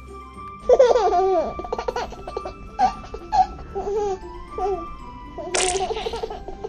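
Childlike giggling in several bursts starting about a second in, the playful voice of a Baby Alive doll, over light background music.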